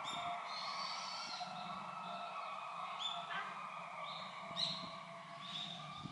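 Small birds chirping, with a few short high notes and quick upward-sweeping calls over a steady hum of background noise.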